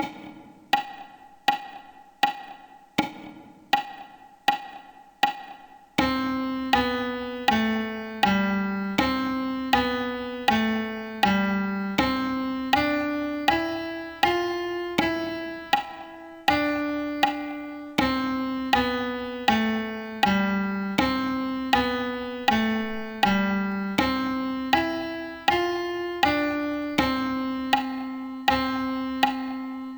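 Piano playing a simple beginner piece at an even pace of about two notes a second. A high note repeats alone for about six seconds, then a louder passage begins, with a simple melody moving in the middle register under the repeated high note.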